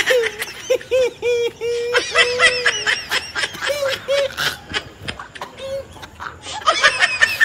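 A man's voice making a string of short, high-pitched wordless cries, each held briefly on about the same note, two or three a second. It breaks off about five seconds in and ends with a quick run of them.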